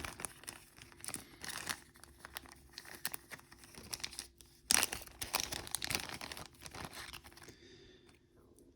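Plastic packaging crinkling and rustling as it is handled, in irregular crackles that are loudest about five seconds in and die away shortly before the end.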